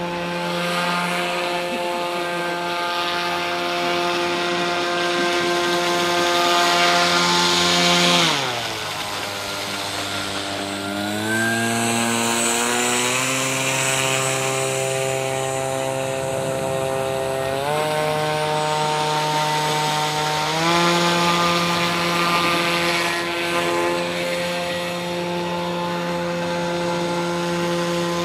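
RC airboat's NTM PropDrive 50-60 brushless outrunner motor spinning an APC 7x8 air propeller, a steady high whine. The motor slows sharply about eight seconds in, then speeds back up in steps over the next dozen seconds to full pitch again.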